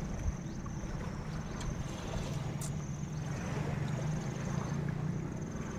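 Outdoor ambience: a steady low rumble under a high, pulsing insect trill that starts and stops about every second.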